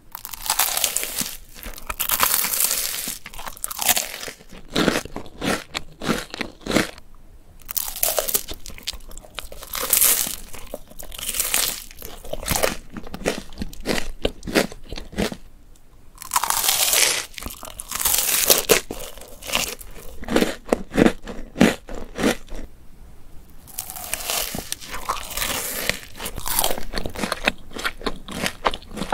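Biting and chewing a crunchy cereal treat bar made of crispy rice cereal, close-miked. It is a run of dry, crackly crunches in bursts of a second or two with brief pauses between them.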